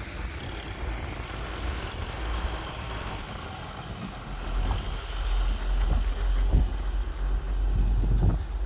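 Heavy diesel vehicle engine running with a deep, steady rumble, getting louder in the second half, with a few short knocks.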